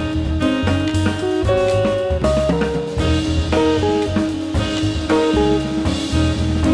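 Jazz quintet of saxophone, guitar, piano, bass and drum kit playing together, the saxophone carrying a melody of held and moving notes over the piano, bass and drums.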